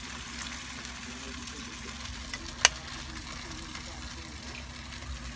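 Sardines in tomato sauce sizzling in a wok over a wood fire, a steady hiss, with a single sharp click about halfway through.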